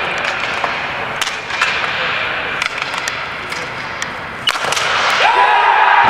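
Ball hockey play: sharp clacks of sticks and ball hitting over a steady din of the rink, then about five seconds in a steady, unbroken tone starts and holds.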